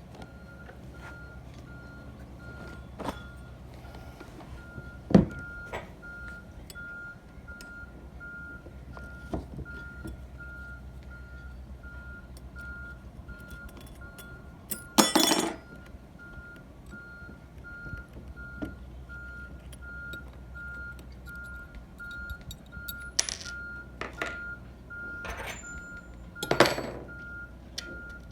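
A vehicle's reversing beeper sounding a steady, evenly repeated beep, with scattered sharp knocks and clunks; the loudest are a single knock about five seconds in, a longer clatter about fifteen seconds in and another knock near the end.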